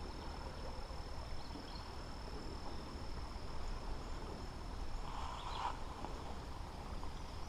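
Insects trilling steadily at one high pitch over a low outdoor rumble, with a brief soft rustle about five seconds in.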